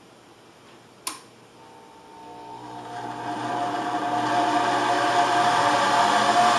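A click, then the Precision 2000 band saw's motor starting up and growing louder as its rheostat speed control is turned up from slow toward fast, settling into a steady hum.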